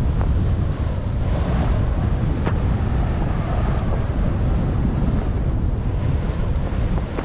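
Steady, loud wind rumble on the camera microphone of a skier descending through deep powder, with the skis swishing through the snow on the turns.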